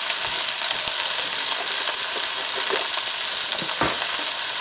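Cross rib beef roast searing in butter and oil in a cast iron pot: a steady sizzle of hot fat with a few small crackles.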